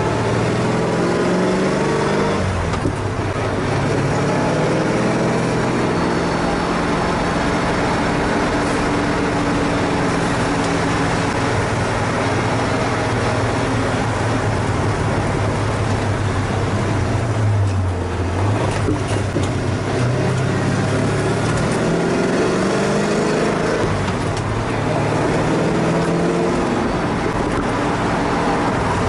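1967 Ford Fairlane GT's V8 engine running under way. The pitch climbs and drops sharply at gear changes of the four-speed manual, about two and a half seconds in and again near the end, with a long steady cruise between.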